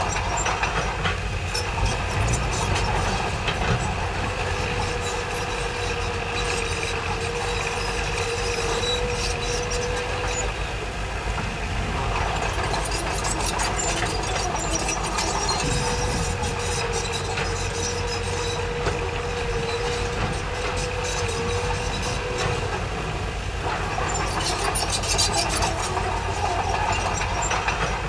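Bulldozer working: its diesel engine runs steadily under load. A steady whine holds for several seconds, twice, and the tracks clank and rattle near the start, about halfway through and near the end.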